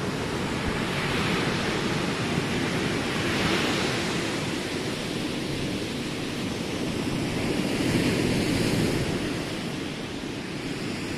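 Ocean surf breaking on the beach, a steady rushing that swells twice, with wind on the microphone.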